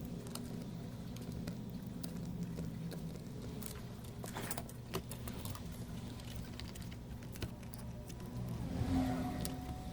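A few faint clicks and taps over a steady low hum.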